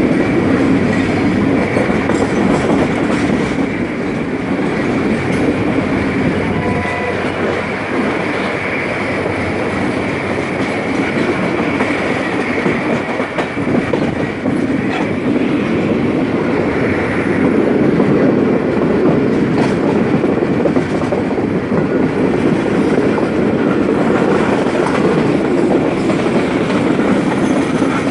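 Pakistan Railways passenger coaches running along the track, with steady wheel-on-rail noise heard from an open coach doorway.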